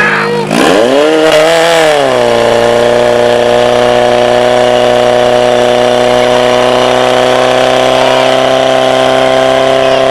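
Portable fire pump's petrol engine revved up hard about half a second in, its pitch climbing and wavering, then held steady at full throttle as it pumps water through the laid-out fire hoses.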